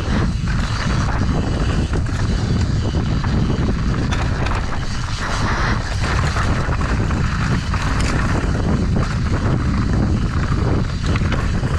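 Mountain bike descending a dirt trail at speed: wind rushing over the helmet-camera microphone and tyres rolling over dirt, with frequent short clatters and knocks from the bike.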